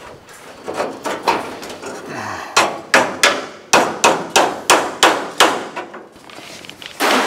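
Hammer blows on the steel roof panel of a 1936 Terraplane coupe as the chopped roof is worked into fit: a few softer taps, then a run of about nine sharp metallic strikes at roughly three a second, each ringing briefly.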